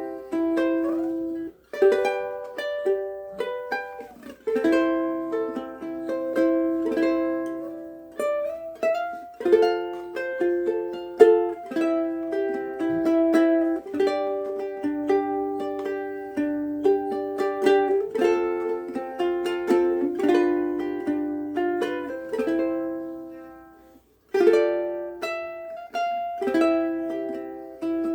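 Oli X1 mahogany soprano ukulele with high-tension strings, played as a run of plucked melody notes and strummed chords that ring out with long sustain. The playing breaks off for a moment a few seconds before the end, then picks up again.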